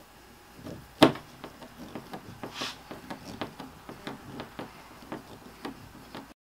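Hand screwdriver turning a screw to fasten a Yak Gear pad eye into a plastic kayak hull: one sharp click about a second in, then a run of small clicks at a few per second with a brief scrape in the middle, cutting off suddenly near the end.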